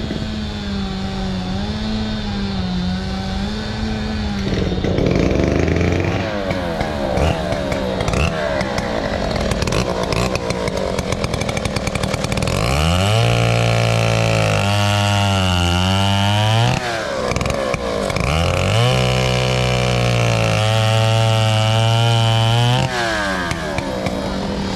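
Antique two-stroke chainsaw idling steadily, then revved up twice, about halfway through and again near the end, holding at high speed for a few seconds each time before dropping back to idle. It idles smoothly.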